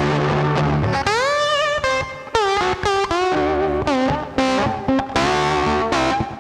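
Rock music with distorted electric guitar playing bent, sliding lead notes over a steady low part.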